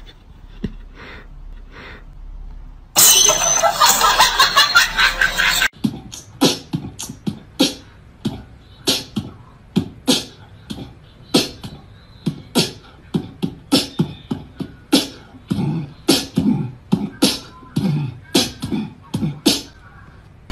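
Beatboxing: quick mouth-made clicks and thumps at an uneven beat, about two a second. About three seconds in, a loud, dense burst of noise lasts roughly three seconds before the beat runs on.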